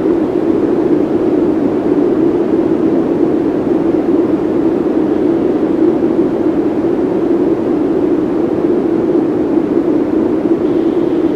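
Heavily effects-processed logo audio, turned into a steady droning noise with no clear notes or beats.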